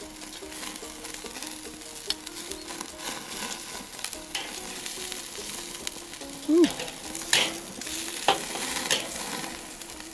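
Ribeye steak sizzling on a charcoal grill grate, with fat crackling as it drips onto the hot coals. A few sharp cracks come in the second half as a flare-up catches. Faint background music plays underneath.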